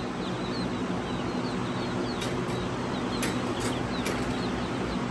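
A crowd of young chicks peeping constantly, with a steady low hum underneath and a few sharp ticks in the middle.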